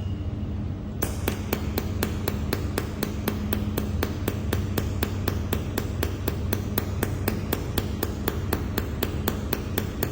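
Mold-repair laser welding machine firing pulses: a sharp click about five times a second, starting about a second in, over the machine's steady low hum.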